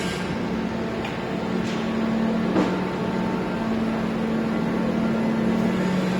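Mazak laser cutting machine still powered up with its laser beam switched off: a steady machine hum with a low drone and a faint hiss. A faint knock about two and a half seconds in.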